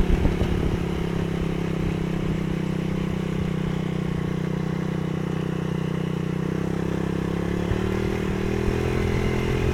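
A vehicle's engine runs steadily while the vehicle travels. Its note shifts and settles about two-thirds of the way through.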